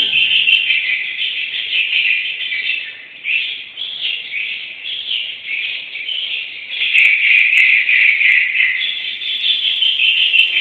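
Dense, unbroken twittering of many swiftlets, a swiftlet-house lure call (suara tarik) meant to draw the birds in. It dips briefly around three seconds in, then grows fuller again.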